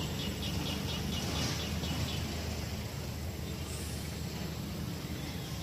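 Rapid high chirping, about five chirps a second, for the first two seconds, over a steady low rumble.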